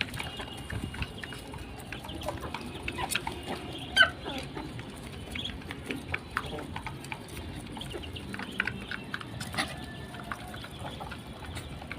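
Young ducklings and other poultry calling with scattered short peeps and clucks, one louder falling call about 4 s in, over many light clicks and scuffles.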